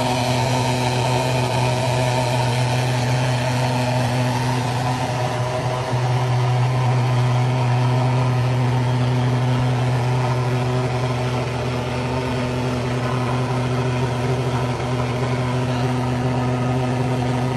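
Steady engine drone with a strong low hum and several steady tones above it, unchanging throughout.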